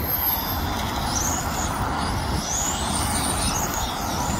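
Radio-controlled XRAY touring cars racing: a high-pitched whine rises and falls several times as the cars speed up and slow down through the corners, over a steady low rumble.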